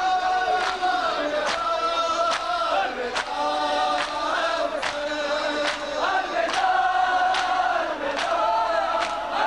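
A noha chanted by a chorus of male mourners, with sharp matam strikes keeping time about once every 0.8 seconds.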